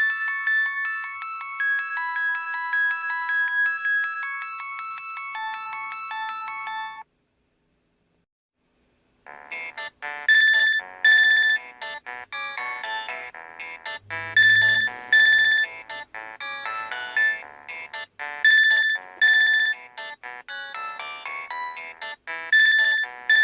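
Nokia 5140 mobile phone polyphonic ringtones. One melody plays and stops about seven seconds in. After about two seconds of silence, a busier ringtone with sharp, repeating high accents begins.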